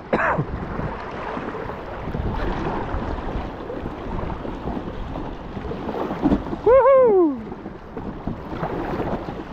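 Wind buffeting the microphone over water washing around an inflatable kayak on a river. About seven seconds in, a single short call rises and then slides down in pitch.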